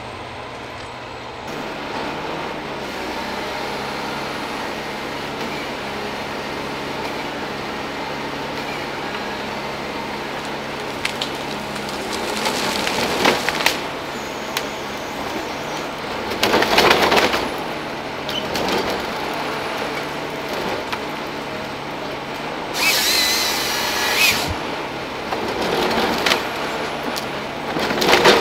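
Ponsse Scorpion forestry harvester working: diesel engine and hydraulics running steadily, broken by several brief louder bursts as the harvester head feeds and cross-cuts a stem into logs.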